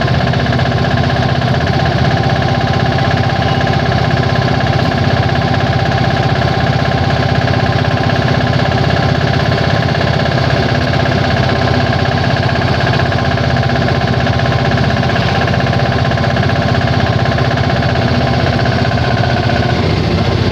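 Auto rickshaw engine running steadily, with a fast, even knocking beat.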